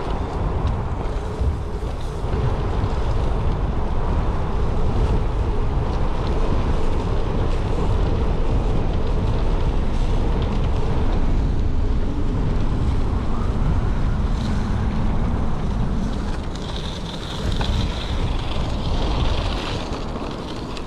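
Wind buffeting the microphone while riding an e-bike fitted with a Bafang BBS02 mid-drive motor, with the motor's faint hum rising and falling in pitch underneath.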